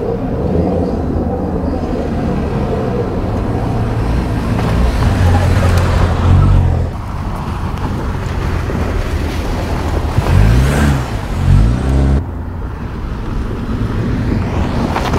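2024 Toyota Land Cruiser driving on a loose dirt track: engine running and tyres on dirt, with the engine note rising and falling twice around ten to twelve seconds in. The sound changes abruptly in places where the footage is cut together.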